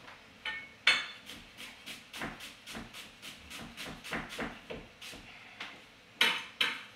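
Chef's knife chopping onion on an end-grain wooden chopping block: quick, even knocks of the blade on the wood, about four or five a second, with two louder knocks near the end.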